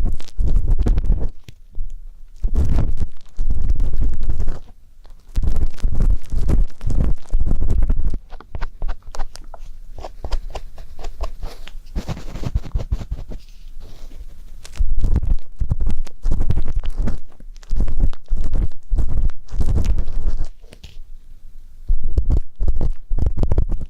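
Ear-cleaning ASMR: an ear-pick tip scraping and rubbing in dense, irregular strokes with a heavy low rumble, softer through the middle and stronger again later.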